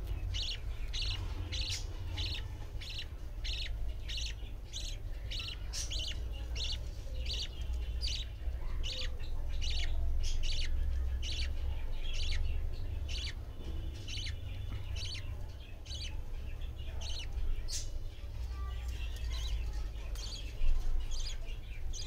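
Budgerigars chirping in a steady rhythm, about two short calls a second, thinning out over the last several seconds, over a low steady hum.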